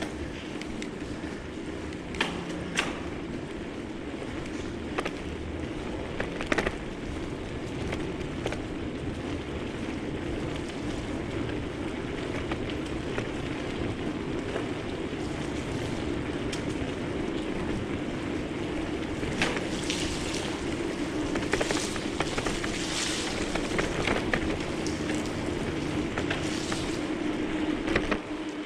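Bicycle riding along a trail inside a tunnel: steady tyre and rolling noise with a low hum that grows louder in the second half, and occasional sharp clicks and knocks from the bike.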